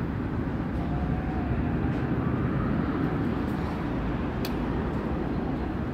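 Steady low rumble of city street traffic and outdoor ambience, even in level throughout, with a faint click about four and a half seconds in.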